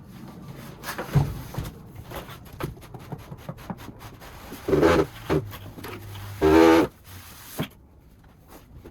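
Cardboard packaging being handled and opened, with rustling and knocks. Two loud sounds stand out, about five seconds in and about six and a half seconds in; the second is a short pitched squeak or groan.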